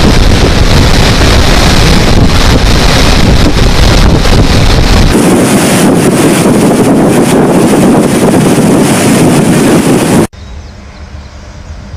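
Floodwater pouring down the spillway of Nagarjuna Sagar Dam from its raised crest gates: a loud, steady rush of water, with wind buffeting the microphone. The rush changes in tone about five seconds in, and near the end it drops abruptly to a much quieter low hum.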